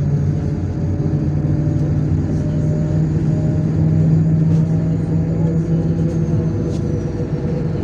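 MAZ-103 city bus under way, heard from inside: a steady diesel engine drone with road rumble. The engine note holds steady, then eases off about six and a half seconds in.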